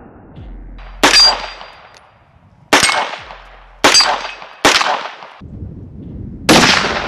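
Five rifle shots at uneven intervals. Each is a sharp crack followed by a short ringing decay.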